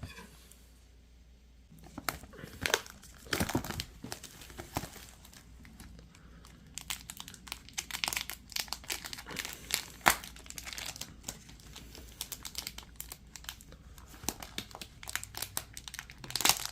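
Packaging being torn open and crinkled by hand, a run of irregular crackling and rustling that starts about two seconds in.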